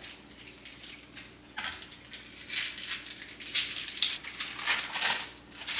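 Kitchen handling sounds while cooking: a series of irregular scrapes and rustles starting about a second and a half in, as cream cheese is worked into a pot of soup.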